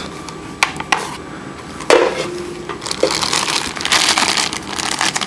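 Plastic packaging being handled: clear plastic bag and bubble wrap crinkling as a bagged cable is pulled out of the box. A few sharp clicks and rustles come first, then a steady crinkling from about three seconds in.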